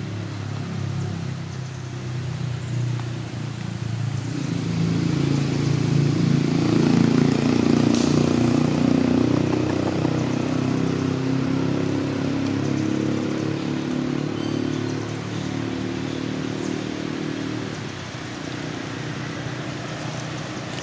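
A motor engine running steadily, growing louder about four seconds in, loudest a few seconds later, then easing off.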